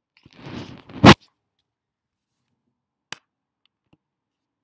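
A door opening with a short scraping rumble, then one loud bang about a second in as it swings to or hits its stop; a faint click follows near three seconds.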